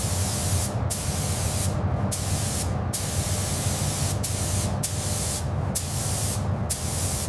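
A pressurised spray hissing loudly in long passes, cut by several short pauses, over a steady low hum.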